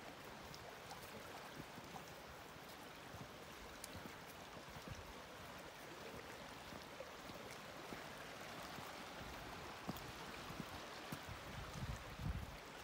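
Steady rushing of a forest creek, with faint scattered footsteps on the dirt trail and a few low thumps near the end.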